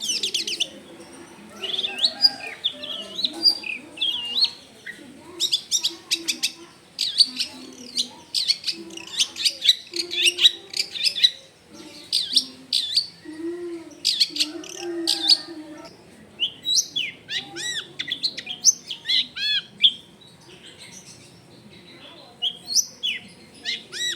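Long-tailed shrike singing a fast, varied song packed with mimicked calls: runs of harsh, rapid chattering notes, then a string of looping whistles a little past the middle.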